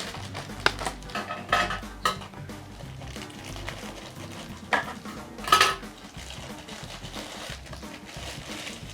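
Small hard plastic and metal hair-clipper accessories clicking and clinking as they are handled and opened, with several sharp knocks, the loudest about five and a half seconds in.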